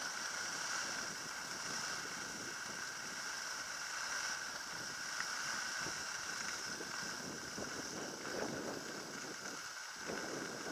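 Skis sliding and scraping over packed, groomed snow with wind rushing past during a steady run down the slope, a continuous hiss that swells a little near the end.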